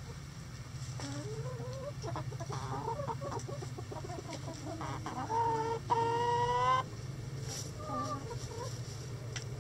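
Chickens clucking and murmuring, with a loud drawn-out call from one bird about six seconds in. A steady low hum runs underneath.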